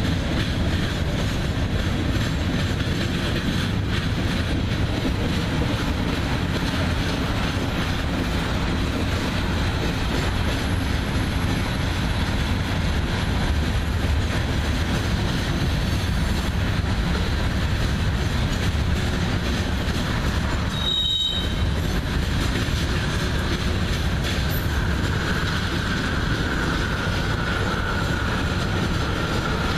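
Freight cars, covered hoppers and tank cars, rolling past steadily with a continuous low rumble of steel wheels on rail. A faint high wheel squeal rises in the last few seconds.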